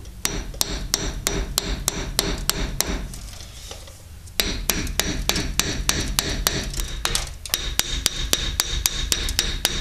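Hammer tapping repeatedly on the rusted, stuck front brake caliper of a 1977 VW Bus to work it off the brake disc: metal-on-metal strikes with a ring, about four to five a second. There is a short pause about four seconds in.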